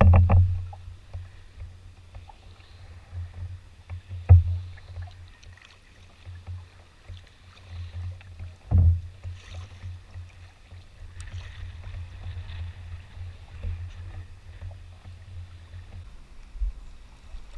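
Canoe on the water with a steady low rumble, as from wind on the microphone, and three dull knocks about four seconds apart, as of a paddle striking the canoe's hull.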